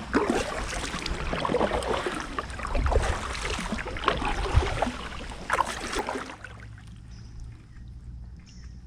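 Kayak paddle dipping and splashing in water, with drips and small clicks. It stops about six seconds in, leaving a faint low hum and a few faint high tones.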